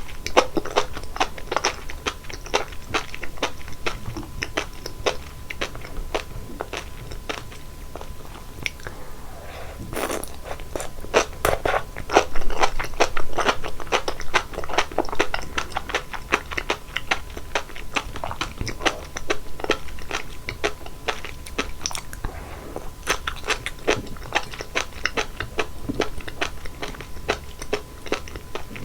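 Close-miked eating of sea grapes: rapid crisp popping and crunching as the little beads burst between the teeth, with wet chewing. The popping comes in dense clusters, heaviest about ten to fifteen seconds in and again past twenty-three seconds.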